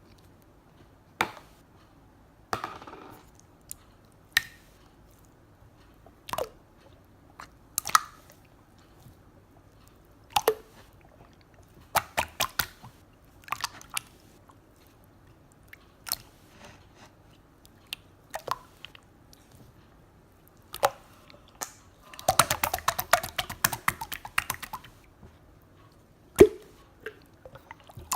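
Slime being squeezed and poked by hand, making scattered sharp clicks and wet pops, with a dense run of fast crackling pops about two-thirds of the way through.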